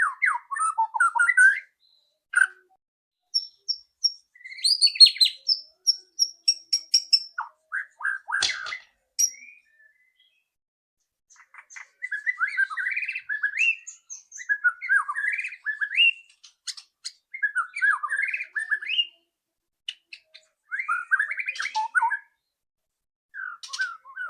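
White-rumped shama singing in varied phrases: clear whistled notes and high sharp notes, a pause of under two seconds near the middle, then a run of short, rapid chattering phrases repeated one after another.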